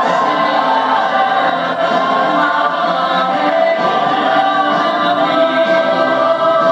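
Musical theatre song performed live: a man singing into a handheld microphone over group vocal harmonies and band accompaniment.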